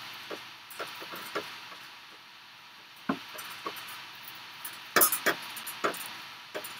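Hands handling ribbons on a door hanger: scattered light taps, clicks and rustles as the ribbon loops are pushed into place, with a loudest cluster of taps about five seconds in.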